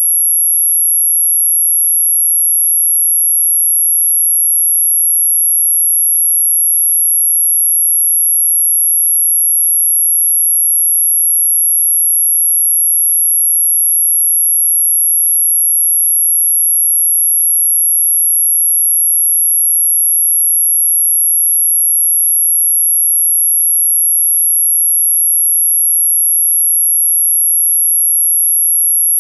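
A single steady, very high-pitched sine tone held without a break, played as an anti-mosquito repellent sound.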